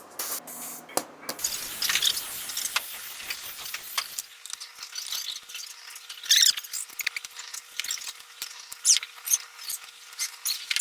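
Hands working on parts and tools during an oil change: irregular scrapes, clicks and short squeaks, loudest about six seconds in and again near nine seconds.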